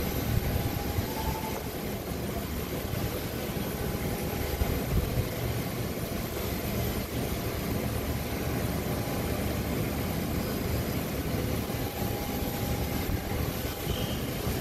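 Steady airport apron noise around a parked Boeing 737 airliner at the gate: a continuous low rumble with a faint steady whine above it, and no sharp events.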